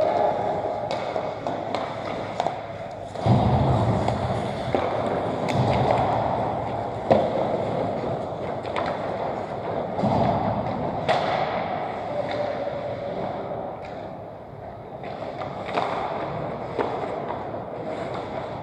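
Ice skates scraping and gliding on rink ice, with hockey sticks and pucks clacking now and then; the sharpest clack comes about seven seconds in.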